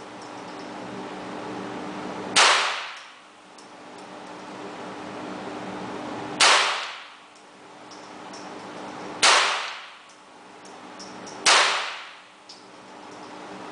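Four single shots from a .22 Colt Target pistol, a few seconds apart in slow, aimed precision fire. Each shot rings off the walls of an indoor range for about a second.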